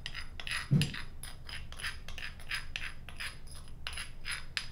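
A metal spoon scraping crushed cumin out of a stone mortar in short repeated strokes, about three a second, with one dull knock about a second in.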